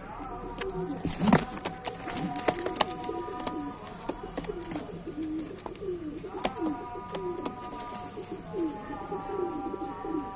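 Several domestic pigeons cooing, one coo after another with rising-and-falling pitch, with scattered sharp taps among them.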